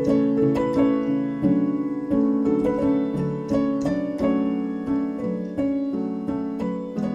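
Background music: a gentle keyboard tune on piano-like notes, struck at an even, unhurried pace, each one ringing and fading.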